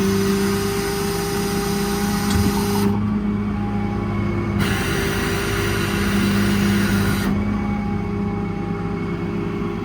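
Truck's 6.7 Cummins ISB diesel running with a steady hum. Over it come two stretches of loud hissing, each about three seconds long: the first at the start, the second about four and a half seconds in. This fits hydraulic flow as the outriggers are worked.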